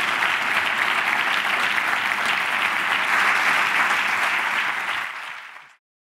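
Audience applauding, steady and loud, then fading and cutting off suddenly near the end.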